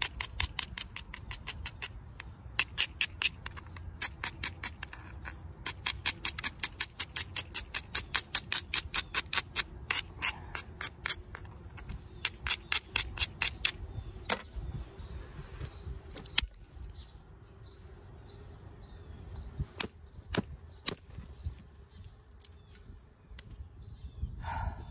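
An abrading stone rubbed in quick strokes along the edge of a stone biface, about five scratchy clicks a second, to grind the platforms before percussion flaking. About fourteen seconds in the rubbing gives way to a few separate clicks of stone on stone.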